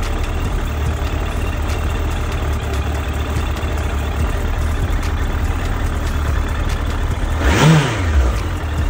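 Suzuki GSF1200S Bandit's carbureted inline-four idling steadily with no sneezing, warmed up. About seven and a half seconds in, a quick throttle blip sends the revs up and straight back down to idle.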